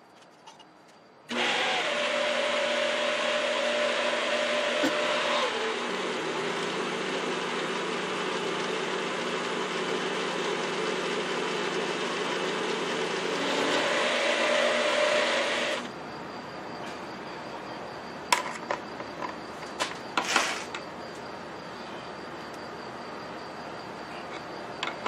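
Milling machine starts about a second in and a spiral roughing end mill cuts the end of a metal bar: a loud, steady machining noise whose hum shifts in pitch as the cut goes on. About two-thirds of the way through the noise drops away, leaving a faint hum and a few sharp clicks.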